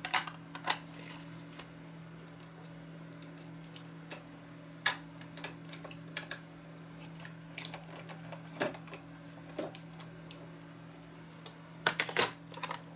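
Scattered sharp clicks and taps of plastic Distress Ink pad cases being handled, their lids snapped open and shut and the pads set down on a cutting mat, with a quick cluster of clicks near the end. A steady low hum runs underneath.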